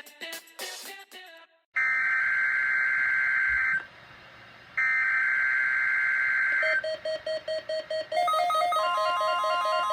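Guitar music ends, then two screeching digital data bursts of about two seconds each, with a pause between them: an Emergency Alert System SAME header. A quick run of about seven short beeps follows, then a repeating electronic alert pattern of alternating beeps over a steady tone.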